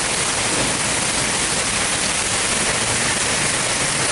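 Heavy rain in a downpour, a steady even hiss of falling water.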